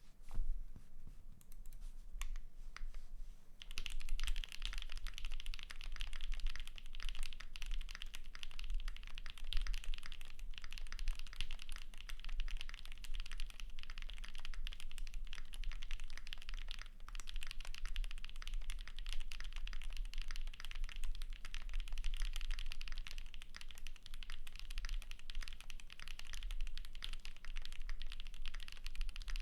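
Typing on an Anode60 custom mechanical keyboard with Haimu x Geon White Tactile switches, an aluminium plate and PBT keycaps. A few separate keystrokes come first, then fast continuous typing from about four seconds in.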